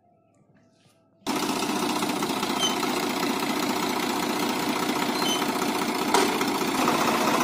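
Near silence, then about a second in the Swaraj 855 tractor's three-cylinder diesel engine starts up loud and runs steadily while the tractor pulls a cultivator through the soil.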